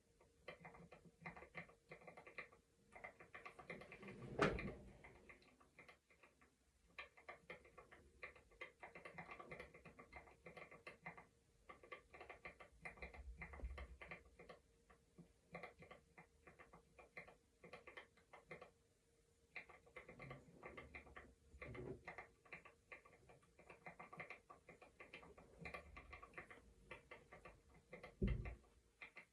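A brush pulled through hair: a faint crackle of bristles in repeated strokes, each a second or two long with short pauses between. Two louder dull thumps, one about four seconds in and one near the end.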